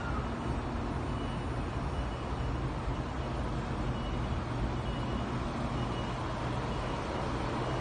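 Taiwan High Speed Rail 700T trainset standing at the platform just before departure: a steady low hum, with a faint high beep repeating about once a second.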